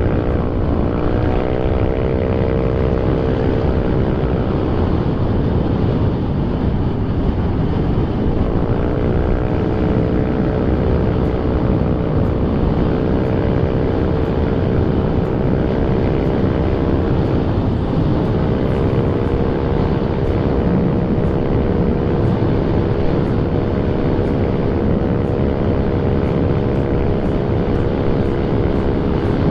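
Yamaha NMAX 180cc scooter's engine running under throttle through an AHM aftermarket exhaust at speed, a steady drone that slowly rises in pitch as the bike gains speed. The pitch dips and climbs back twice, about 8 and 17 seconds in, as the throttle is eased and reopened. Heavy wind rush on the microphone lies under it.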